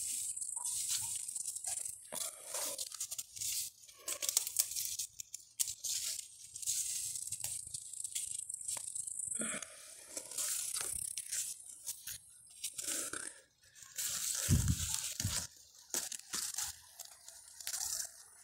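Pepper plant leaves rustling and brushing against the phone as a hand parts the foliage, irregular and on and off, with one dull bump of handling noise about fourteen seconds in.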